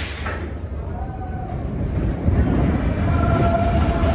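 Expedition Everest roller coaster train running along its track: a steady rumble, with faint thin high tones over it from about a second in.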